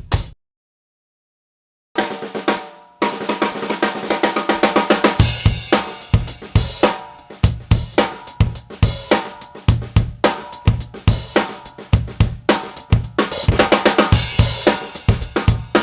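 Drum kit played in a groove built around an undampened 14" x 5.5" rock maple snare drum, with bass drum, hi-hat and cymbals. After a first hit it drops to total silence for about a second and a half, then the drumming starts again and settles into a steady beat.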